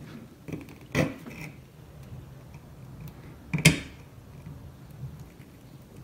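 Needle-nose pliers and new carbon brushes clicking and tapping against the trolling motor's brush holder as the brushes are fitted, with two sharper clicks, about a second in and the loudest at nearly four seconds.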